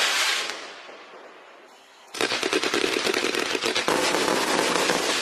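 Consumer fireworks from an eight-piece set going off: a dense rapid crackle dies away during the first second, and about two seconds in a fresh run of rapid crackling and popping starts abruptly and keeps going.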